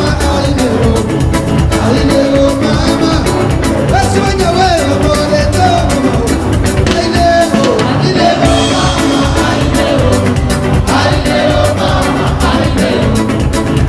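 Live band playing upbeat Comorian dance music, with a lead vocal over a bass line and a fast, steady drum beat.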